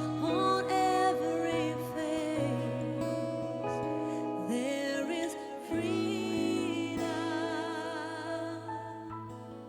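Worship band playing with singing: a slow contemporary worship song with sung lines over held chords and bass, fading toward the end as the song closes.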